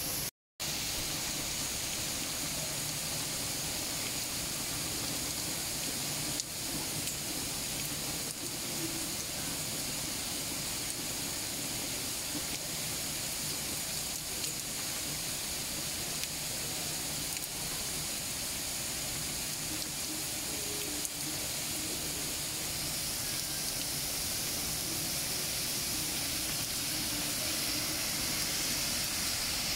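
Heavy rain falling in a steady, even hiss on the street and the leaves. Over the last few seconds the hiss swells slightly as a car drives through the wet street.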